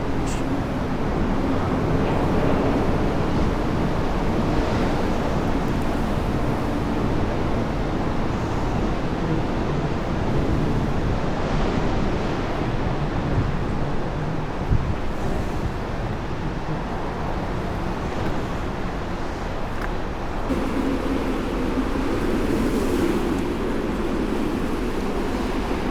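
Strong wind buffeting the microphone: a steady, dense rush of noise weighted toward the low end. Its character changes about twenty seconds in.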